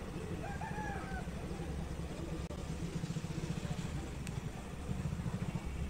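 Steady low rumble of an Indian Railways express train's coaches rolling away along the track as it picks up speed after departure.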